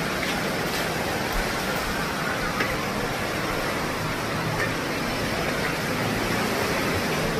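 Steady rushing noise of wind blowing across the microphone, with no distinct events.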